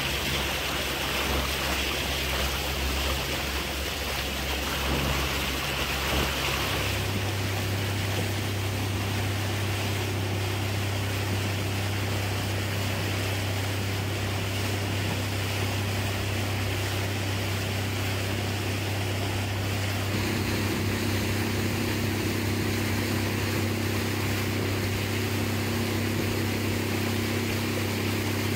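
Boat motor running steadily with water rushing past the hull. The engine note shifts about seven seconds in, and a higher hum joins it about twenty seconds in.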